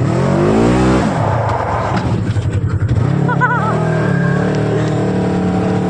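UTV buggy engine revved up with the pitch rising in the first second, then running steadily.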